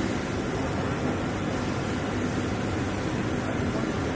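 Steady machinery noise: an even hiss with a low hum underneath, unchanging throughout.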